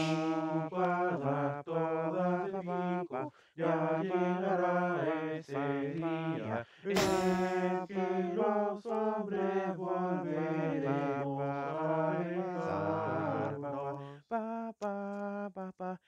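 Several layered male voices singing a cappella in close harmony, holding chords that change every second or so, with a short breathy hiss about seven seconds in. The singing breaks up into short fragments near the end.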